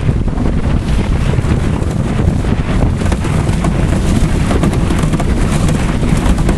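Heavy wind buffeting the microphone inside a car whose windshield has been blown out, over the steady rumble of the car driving across a rough field, with many small knocks and rattles through it.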